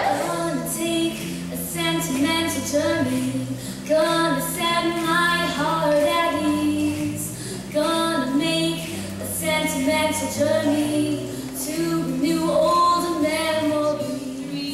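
A teenage girl singing a solo into a microphone, holding long notes over a quieter accompaniment of low held notes.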